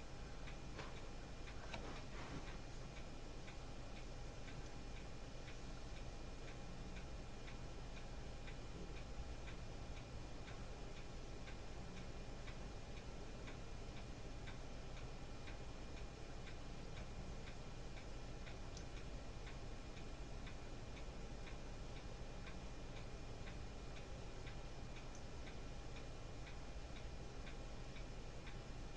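A clock ticking regularly and steadily over a low, steady electrical hum.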